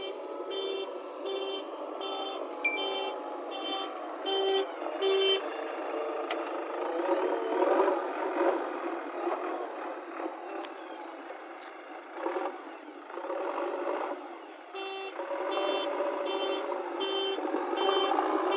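Backhoe loader's reversing alarm beeping steadily, about three beeps every two seconds. It stops for about nine seconds, leaving rougher machine noise, and starts again near the end.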